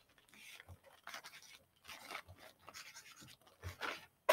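Felt-tip marker scribbling on a paper coffee filter, faint short scratchy strokes coming irregularly.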